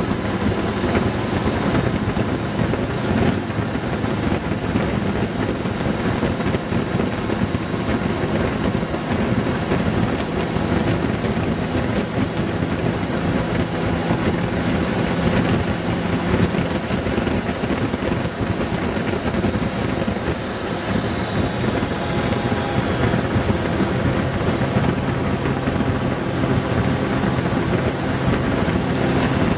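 Honda Gold Wing GL1800's flat-six engine running steadily at cruising speed, heard from the rider's seat under a constant rush of wind over the microphone.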